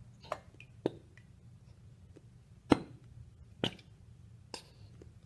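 About five short, sharp knocks and clicks of plastic containers handled over a bowl on a table, the loudest near the middle, over a low steady hum.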